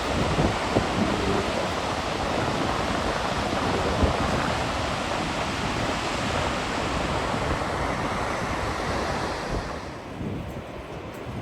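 Steady rushing roar of Gullfoss waterfall, with wind buffeting the microphone. Near the end the hiss thins out and the level drops.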